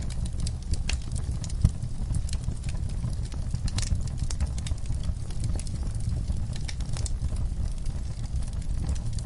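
Wood fire crackling and popping over a steady low rumble of flames, with one louder pop about a second and a half in.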